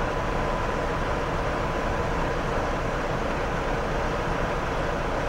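BR Class 45 'Peak' diesel locomotive, its Sulzer 12LDA28 engine idling while standing: a steady, even engine hum with a faint high tone that fades out about two seconds in.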